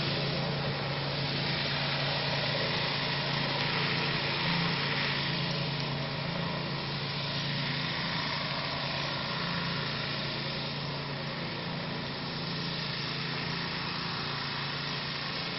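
An engine running steadily at constant speed, a continuous even hum with no change in pitch.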